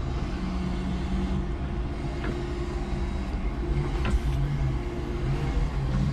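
5-ton electric forklift running as it manoeuvres: low steady motor whines that cut in and out and change pitch over a low rumble, with a few light knocks.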